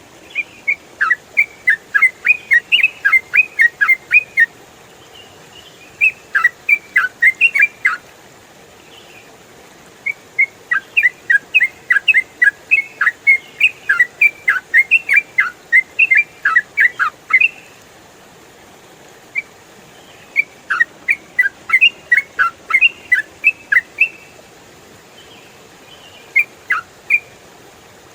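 Yellow-vented bulbul (trucukan) singing in rapid chattering phrases of sharp, clear whistled notes, each phrase a few seconds long, with short pauses between them.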